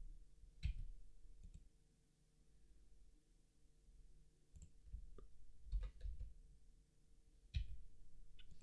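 Faint, scattered clicks of a computer mouse and keyboard keys, about eight single clicks spread irregularly, over a low hum.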